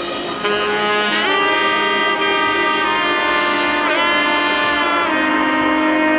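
Background music: a saxophone-like horn line playing held notes with bends, with no drums.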